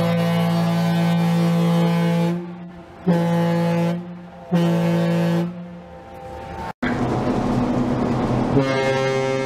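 Washington State Ferries ferry Tokitae's horn sounding one long blast, then two short ones, a deep multi-note chord. After a sudden cut and a stretch of outdoor noise, a second ferry's horn, the Skeena Queen's, starts a long blast near the end with a different, lower chord.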